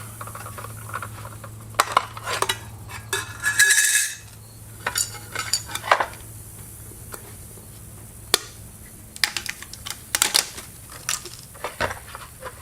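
Irregular metallic clinks, rattles and scrapes of a circular saw's arbor bolt, washer and blade being worked off by hand, over a steady low hum.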